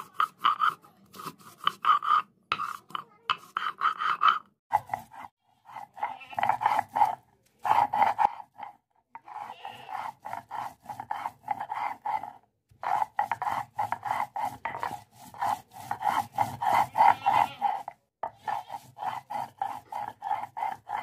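Shil-nora grinding stone: the hand stone rubbed rapidly back and forth over the wet stone slab, crushing soaked coriander, cumin, black pepper and ginger into a paste. The strokes come in runs of several seconds with short pauses between.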